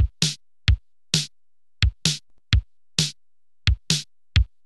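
Music: a sparse drum-machine beat, low kick-drum thumps alternating with sharp snare-like hits, about two to three hits a second with silence between them.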